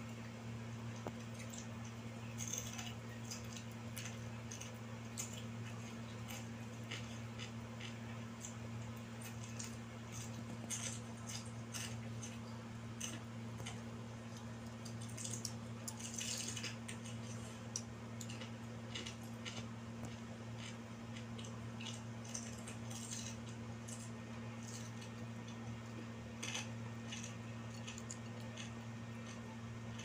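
Small irregular clicks, crackles and wet squishes of a cooked quail being torn apart by hand and chewed, over a steady low hum.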